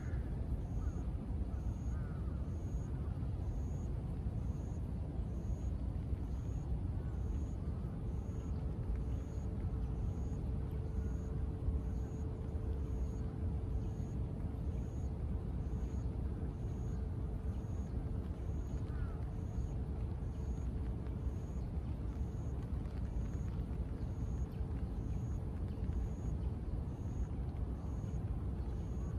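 Steady low rumble of city traffic, with a faint high pip repeating about once a second throughout.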